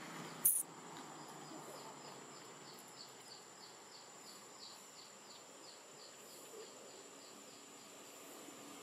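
Outdoor ambience of insects: a steady high whine with a regular run of short high chirps, about three a second, that dies away near the end. A single sharp click about half a second in is the loudest moment.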